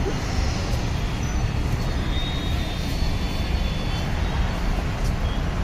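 Steady rumble of heavy road traffic on a busy city road.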